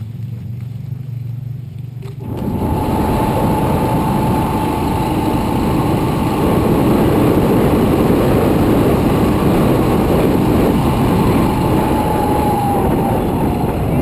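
A low steady hum, then about two seconds in, a motorcycle under way: its engine running under loud wind rush, with a steady whine over the top.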